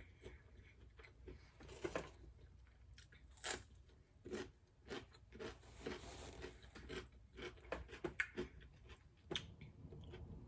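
Close-miked chewing and biting of food, with irregular crunches and wet clicks of the mouth.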